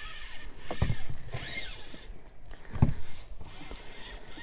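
Two short, dull thumps, about a second in and again about three seconds in, over a faint hiss: knocks and handling in an inflatable boat while a pike is played on a spinning rod.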